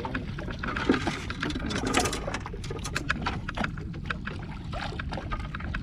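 Water splashing and sloshing against a small boat's hull as a landing net is worked through the water around a hooked fish, with irregular sharp splashes, the strongest about one and two seconds in, over a low steady rumble.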